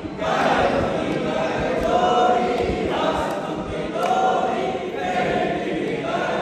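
A group of voices singing an aarti hymn together, in phrases with long held notes.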